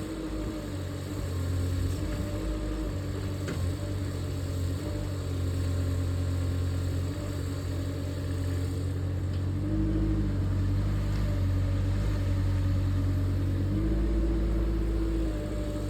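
Engine of a 2-tonne mini excavator running steadily and picking up in pitch twice, about ten seconds in and again near the end.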